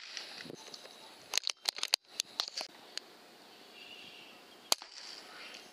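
Sharp clicks and cracks from air rifle shooting and handling: a quick cluster of clicks about a second and a half in, then a single louder crack near the end, over a faint steady high whine.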